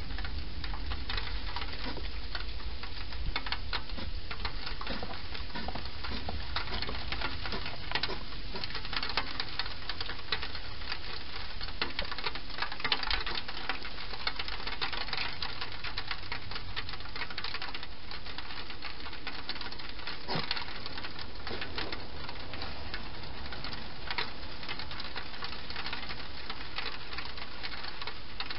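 Wild hedgehog feeding inside a plastic feeding station: a dense run of small crunching clicks and scuffles, busiest about halfway through, over a steady hiss.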